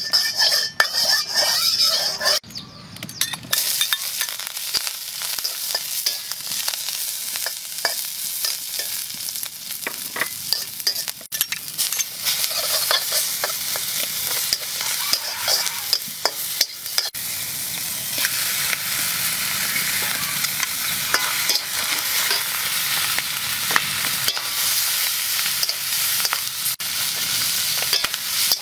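Oil sizzling as chicken pieces and vegetables are stir-fried in a wok, with a metal spatula scraping and clattering against the pan.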